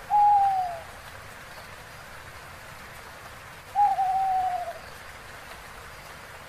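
An owl hooting twice, each hoot a single slightly falling note about a second long, the second some four seconds after the first, over a steady hiss.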